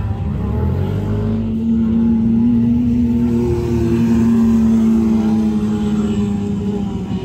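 Off-road vehicle engines revving hard while dune bashing on sand; the engine pitch climbs over the first second and a half, then holds high and steady.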